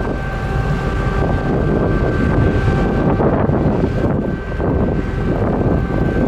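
Car ferry's engines running with a steady low drone and a few held machinery tones, while wind buffets the microphone.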